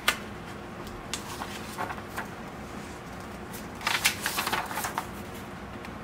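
A paper instruction leaflet being unfolded by hand: a sharp snap of paper at the start, a few soft crinkles, then a burst of crackly paper rustling about four seconds in as the sheet is opened out flat.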